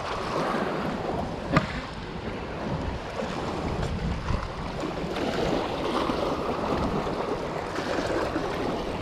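Choppy lake water lapping and splashing against a rocky shore, with wind buffeting the microphone. A single sharp click stands out about a second and a half in.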